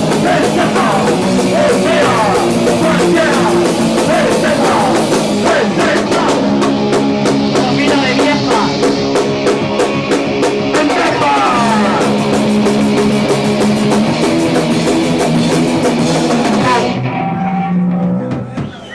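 Punk rock band playing live: drum kit, electric guitars and vocals. About 17 seconds in the drums stop and a held chord rings on briefly before dying away.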